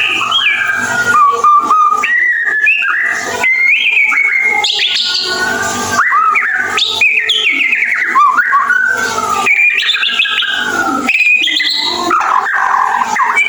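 White-rumped shama (murai batu) singing a continuous, varied run of whistled notes, rising and falling slurs and quick twittering chatter, with hardly a pause.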